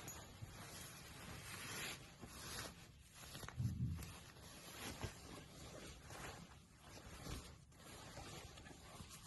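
Irregular rustling and handling sounds, with a brief low thud about three and a half seconds in.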